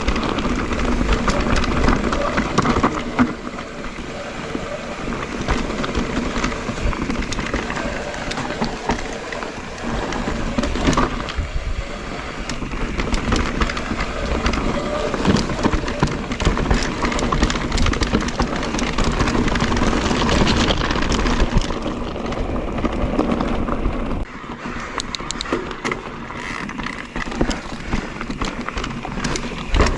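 Mondraker Crafty electric mountain bike ridden over a rough trail: tyres crunching on gravel and stones, with a dense run of small knocks and rattles from the bike, easing off a little near the end.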